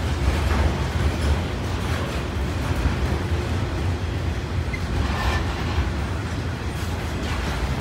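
Intermodal freight train's cars, loaded with trailers and containers, rolling past: a steady deep rumble of steel wheels on the rails, with a few faint clicks.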